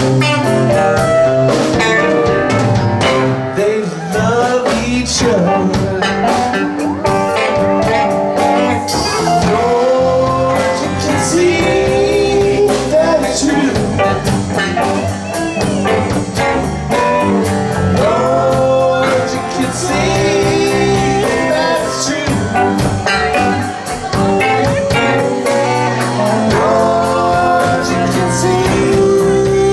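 Live rock band playing: electric guitar lead with bending notes over drum kit and keyboards, with singing coming in near the end.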